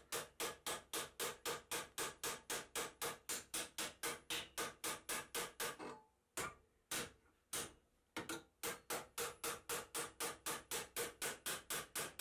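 Light hammer blows on sheet metal being cold-forged into a square corner, about four quick strikes a second, each with a short metallic ring. About six seconds in the rhythm breaks for a moment to a few single blows, then the steady hammering picks up again.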